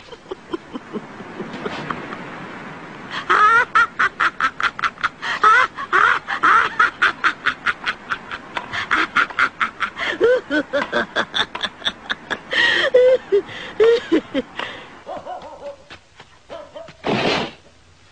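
A terrified man's panting, yelping cries in quick rhythmic bursts, about four a second, as he runs in panic. Near the end come a few separate, louder cries.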